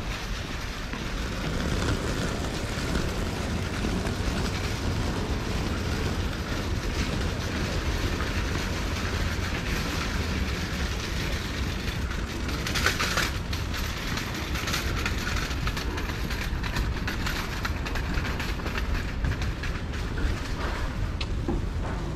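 Street noise heard while walking: a steady low rumble with the rattle of small wheels rolling on the asphalt from a rolling suitcase and a shopping cart. A short louder rattle comes about 13 seconds in, as the cart passes close.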